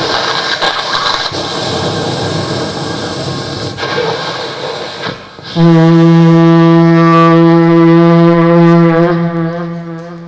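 Vocal mimicry of a train by a group of performers: a noisy rumbling and hissing run for about five seconds. Then a long, loud, steady horn blast starts and holds until it fades near the end.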